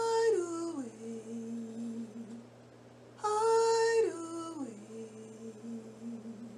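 A woman humming two long wordless phrases, each starting on a held higher note and stepping down to a long lower note; the second phrase begins about three seconds in.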